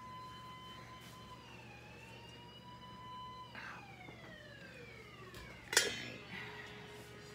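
A steady high whistling tone that wavers and then slides down in pitch over about two seconds. A single sharp clank of metal kitchenware comes about six seconds in.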